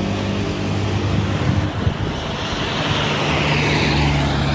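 A nearby motor vehicle engine running steadily, with road and wind noise; its note shifts about two seconds in.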